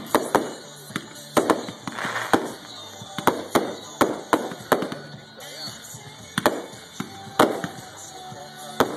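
Aerial firework shells bursting overhead: a rapid, irregular string of sharp bangs, about fifteen in all, with a short lull of a second or so past the middle.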